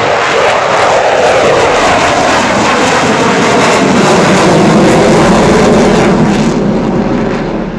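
Avro Vulcan's four Rolls-Royce Olympus turbojets at high power as the bomber climbs away overhead: a loud, steady jet noise that begins to fade near the end.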